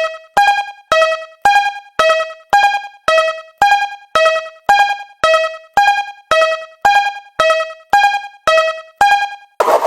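Japanese railroad crossing warning bell ringing: electronic dings alternating between a higher and a lower pitch, about two a second, each dying away quickly. It stops near the end as a denser, noisier sound takes over.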